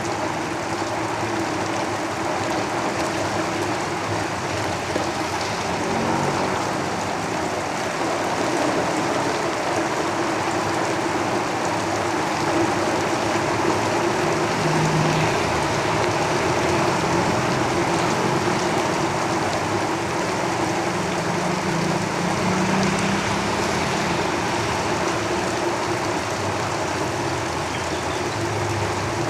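Heavy rain falling steadily on a roof, with vehicles rumbling past on a road, their low sound swelling now and then.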